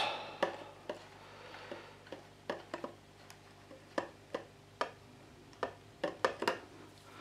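Light, irregular metallic clicks and taps as a brake-line banjo bolt with new copper washers is fitted by hand into a Triumph Bonneville T140's front brake master cylinder. A quick run of clicks comes about six seconds in.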